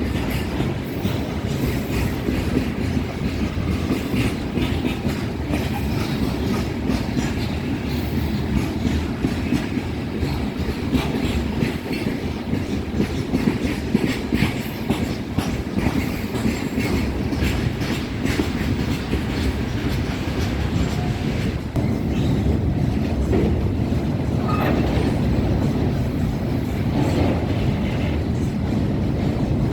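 Freight train wagons passing close by, a steady heavy rumble with rapid clacking of wheels over rail joints and an occasional faint wheel squeal.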